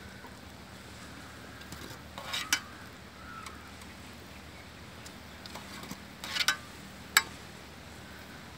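A wire spider skimmer clinks against an aluminium plate as potato rings are tipped off it: a few sharp clinks in three short groups over a faint steady background.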